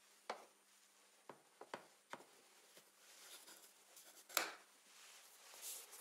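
Faint handling sounds of a dust extractor's filter and housing parts: a handful of light clicks and knocks, the sharpest about four and a half seconds in, with soft rustling between.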